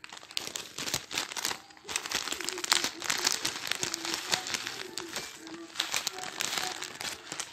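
Crinkling and rustling with many small irregular crackles, as material is handled close to the microphone, growing denser about two seconds in.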